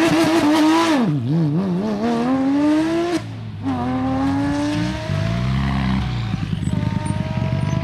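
Porsche 996 GT3 rally car's flat-six held at high revs on the start line, then launching and accelerating away: the pitch climbs, breaks for a gear change about three seconds in, climbs again and fades. From about five seconds in, a second rally car, a Mitsubishi Lancer Evolution, idles unevenly as it rolls up to the line.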